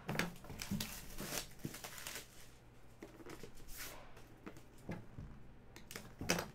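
Rigid cardboard card boxes being handled: scraping, rustling and light knocks as a box is picked up and its lid lifted off, with a sharper knock near the end.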